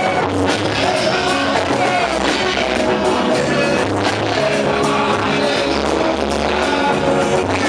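Loud, continuous music with bass, guitar and singing.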